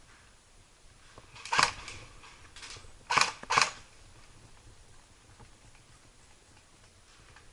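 Sharp pops of an airsoft replica gun firing single shots: one about a second and a half in, a fainter one after it, then a quick pair about three seconds in.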